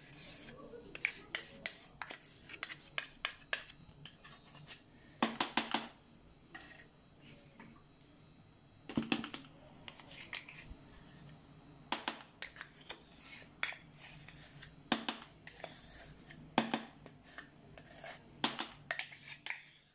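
Plastic caramel-yogurt cups clicking and scraping against a plastic tub as the yogurt is emptied out of them: irregular sharp clicks in scattered clusters through the whole stretch.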